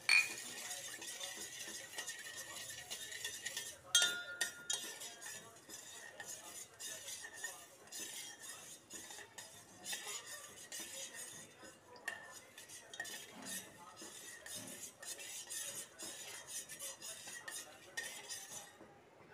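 A metal spoon stirring milk in a stainless-steel bowl, scraping and clinking against the sides throughout. There are two louder ringing clinks, one at the start and one about four seconds in.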